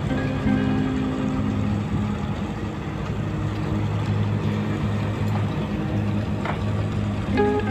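Fishing boat's engine running with a steady low drone over a rushing wash of noise.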